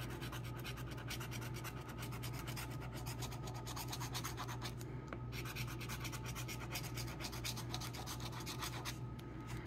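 A coin scratching the coating off a scratch-off lottery ticket, a quick, continuous run of short scraping strokes.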